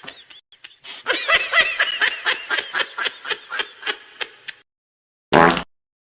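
Laughter sound effect: a high-pitched snickering laugh in a quick run of short pulses, about five a second, that fades out over about three and a half seconds. Near the end comes a separate short half-second blast of another sound.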